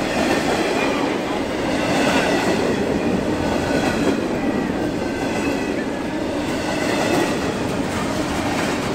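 Intermodal freight train passing close by through a level crossing: a steady, loud rumble and clatter of wheels on rail as the container cars roll past.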